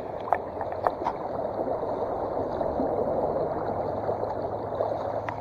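Steady rush of flowing water, with a few faint clicks and taps over it.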